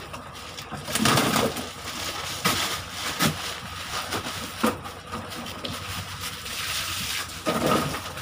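Plastic liner bag rustling and crinkling as hands press it down over ice-packed fish and twist it shut, in irregular crackling bursts.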